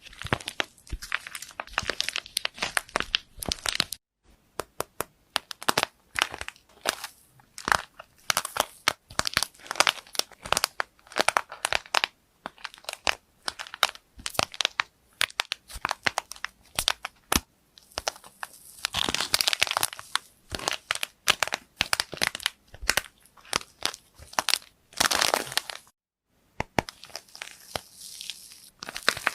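Slime being squeezed and pressed by hand, making a dense run of sharp crackles and pops. The sound breaks off for a moment about four seconds in and again near the end.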